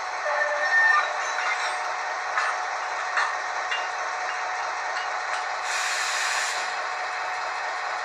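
ESU LokSound 5 sound decoder in an H0 model of the ÖBB 2050, playing the locomotive's two-stroke EMD diesel running sound through a small speaker during shunting. Short high tones come in the first second, and a brief burst of air hiss comes about six seconds in.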